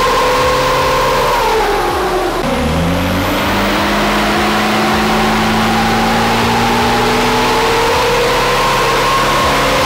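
Isuzu 4JJ1 four-cylinder turbo-diesel engine running under load on a chassis dyno. The revs drop about two seconds in, then climb steadily through most of the rest.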